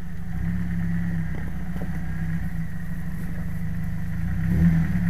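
Jeep Wrangler TJ's engine running at low revs as it crawls up a rutted, muddy gully, with a short surge a little before the end.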